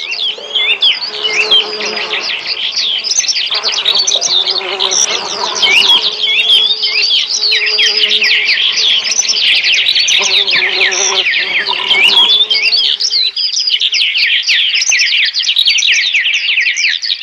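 Many small birds chirping rapidly and overlapping in a dense chorus, with a lower pitched sound coming and going underneath until about two-thirds of the way through.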